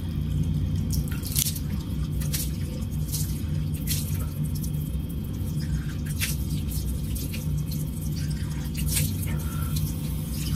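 Face being rinsed with cold water at a bathroom sink: hands scooping and splashing water onto the face, with irregular splashes and drips over a steady low hum.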